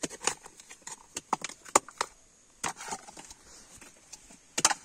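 Bolo knife prying copra (coconut meat) out of split coconut shells on a wooden chopping block: irregular sharp knocks and cracks, loudest about two seconds in and again near the end.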